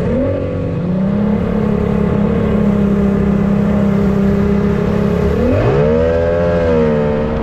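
High-performance outboard motor running hard on a boat underway at speed, with a steady engine note over wind and water rush. About five and a half seconds in, the note climbs as the throttle opens, then holds at the higher pitch.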